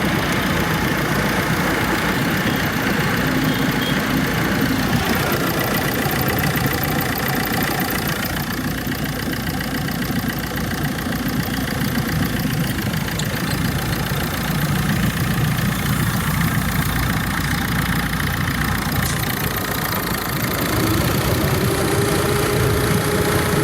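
Air-conditioner compressor unit running with a steady mechanical hum and vibration. A faint steady tone comes in about 21 seconds in.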